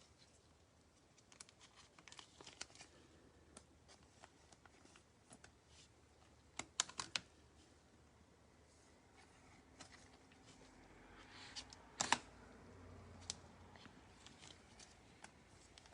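Faint clicks and taps of trading cards being handled and flipped through, with a few sharper clicks about seven seconds in and again about twelve seconds in.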